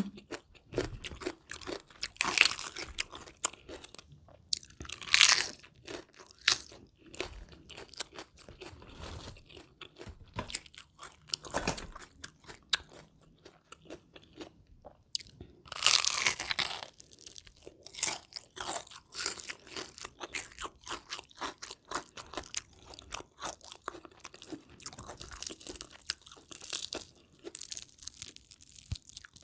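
Close-miked biting and chewing of crispy battered deep-fried chicken: a steady run of crackly crunches, with louder bites about two, five and sixteen seconds in.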